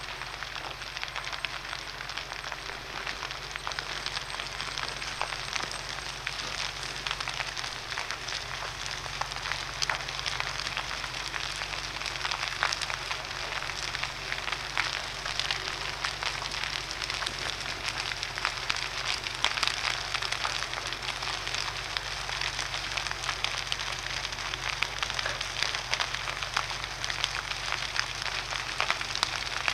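Large building fire burning hard: a continuous crackling hiss of flames with many sharp, irregular pops and snaps.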